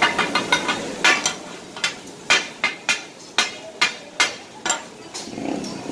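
Two flat metal spatula blades striking and scraping a large flat griddle as offal is chopped for kata-kat: sharp clanging strikes, a quick flurry at first, then about two a second, easing off near the end. This clatter of blades on the griddle is the sound the dish is named after.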